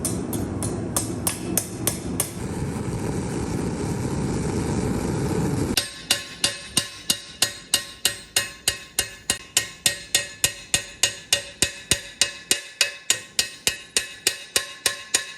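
Blacksmith's hammer striking steel on an anvil in a steady rhythm of about three blows a second, each blow ringing. For the first part a loud steady roar runs underneath, with the hammering pausing for a few seconds before the ringing blows start again without the roar about six seconds in.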